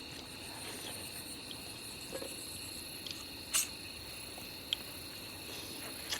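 Night crickets trilling steadily on one high pitch. Over them come a few small handling sounds: a short rustle about three and a half seconds in and a sharp click a second later.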